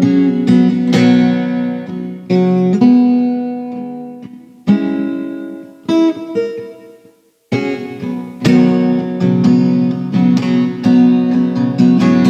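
Acoustic guitar playing a picked instrumental introduction, with chords and single notes ringing out. The playing dies away to a brief silence about seven seconds in, then starts again and grows busier.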